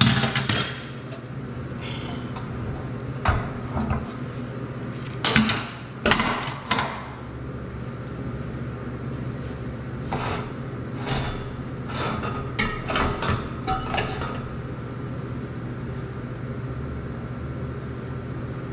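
Heavy steel C-clamps clanking as they are taken off a steel tube and set down on a steel welding table: a handful of separate knocks in the first seven seconds, then a quicker run of clanks as the tacked tube is turned over on the table. A steady low hum runs underneath.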